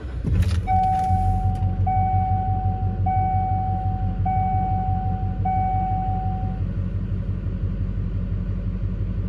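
A 6.6 L Duramax diesel V8 in a 2006 Chevrolet Silverado 2500 starts about half a second in and settles into a steady idle, heard from inside the cab. Over the first several seconds the dash warning chime sounds five times in a row, each tone about a second long.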